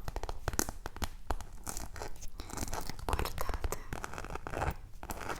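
Close-miked handling of packaging or a bought item: rustling, scratching and a rapid run of small taps and clicks.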